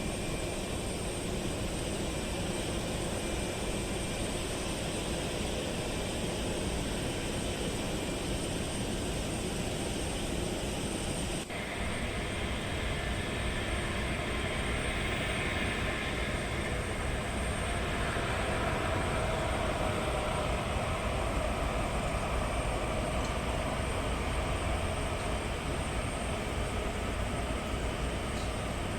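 Jet airliner engines running, a steady roar of noise. It cuts off abruptly a little over a third of the way in and is replaced by engine noise that gradually swells louder.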